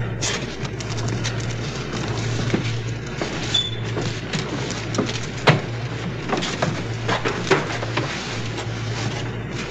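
Irregular knocks and clicks, like footsteps and handling on a metal deck, over a steady low hum that pulses on and off.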